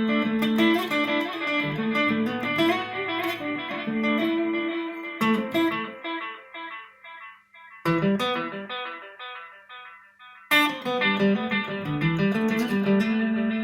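Guitar playing picked notes and chords recorded and played back through a homemade tape machine fitted with standard cassette tape heads. Struck chords about five, eight and ten and a half seconds in are each followed by evenly repeating copies that fade away.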